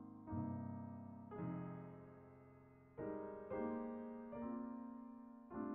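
Slow outro music of piano chords, each struck and left to ring and fade, six in a row at an unhurried, uneven pace.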